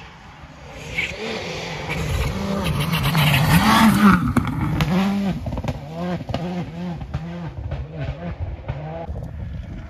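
A rally car at full speed passes close by, its engine loudest about four seconds in, with a hiss of tyres on loose gravel. As it pulls away, the engine note climbs and drops again and again in quick succession, slowly fading.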